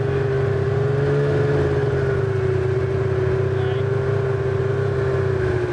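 Ski-Doo snowmobile engine running at a steady speed, its pitch easing down near the end.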